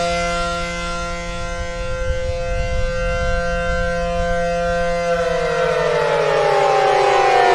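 ACA Allertor-125 15 hp outdoor warning siren sounding a steady alert tone. About five seconds in, its pitch starts to fall as it winds down, while the sound grows louder.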